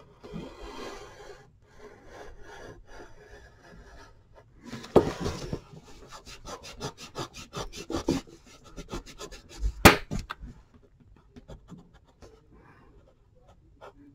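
Pencil scratching on paper as lines are drawn, with a stretch of quick repeated strokes in the middle. A single sharp knock about ten seconds in is the loudest sound.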